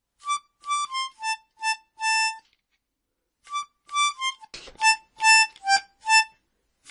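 Background music: a simple tune played one note at a time, in two short phrases with a pause of about a second between them.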